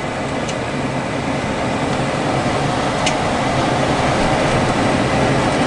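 Lennox Elite series gas furnace running steadily, a constant rush of blower air and burner noise over a low hum, with a couple of faint clicks.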